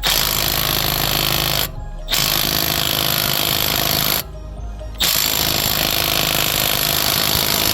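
Milwaukee M12 3/8-inch right angle cordless impact wrench hammering on a lug nut in three long bursts of rapid impacts, with two short pauses between them.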